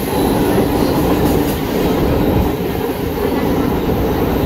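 Chennai MRTS electric suburban train running along elevated track, heard from inside the carriage: a steady rumble of wheels on the rails.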